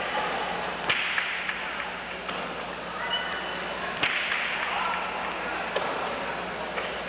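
Jai alai pelota striking the fronton wall: two loud cracks about three seconds apart, each ringing on in the hall's echo, with a few lighter knocks between.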